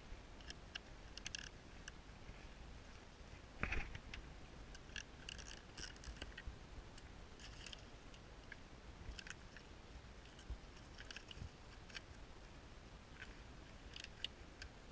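Faint, scattered metallic clicks of a 10mm wrench loosening the nut on a car battery terminal clamp, with one slightly louder clink about four seconds in.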